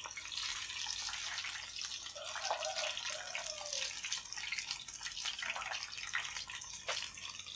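Batter-coated tofu and mushroom pieces deep-frying in a wok of hot oil: a steady sizzle full of fine crackles.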